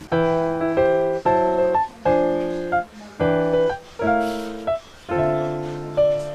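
Background music: a piano playing a slow run of chords, each struck and left to fade.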